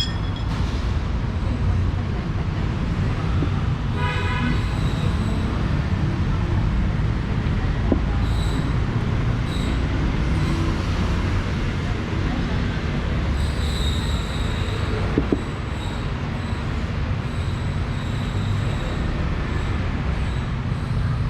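Road traffic with a steady low rumble, a short vehicle horn toot about four seconds in, and voices in the background.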